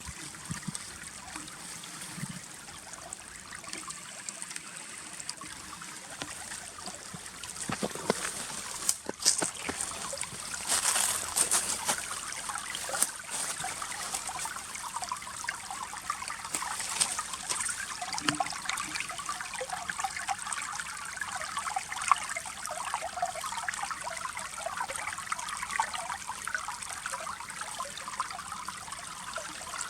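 Shallow stream water trickling and babbling among ice, with small bright water sounds all through. It swells briefly about a third of the way in, and the babble grows busier in the second half.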